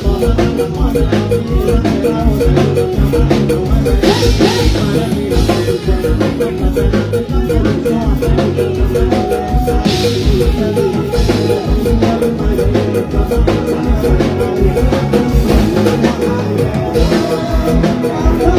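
Live mor lam band music through the stage PA, with a steady drum-kit beat.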